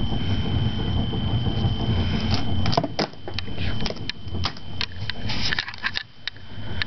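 Handheld camcorder handling noise: a steady low rumble under a thin steady high whine, then from about two seconds in a run of small sharp clicks and knocks as the camera is moved about over plastic action figures.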